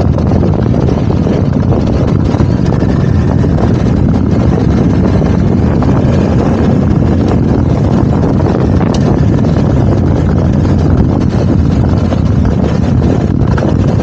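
BMW R1250 GS Adventure motorcycle under way at a steady cruise: its boxer-twin engine running evenly, mixed with wind rush on the microphone.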